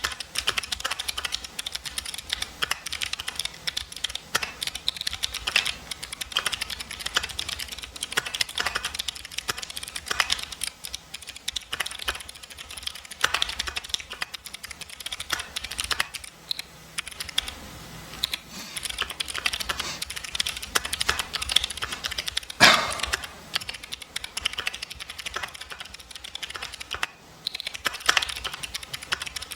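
Continuous fast typing on a mechanical keyboard with clicky jade switches: a dense, irregular clickety-clack of keystrokes, with one louder key strike about three-quarters of the way through.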